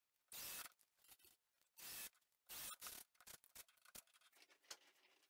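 Ryobi cordless drill driving screws through a swivel caster's mounting plate into a wooden leg, in three short bursts within the first three seconds, with small clicks and handling sounds between.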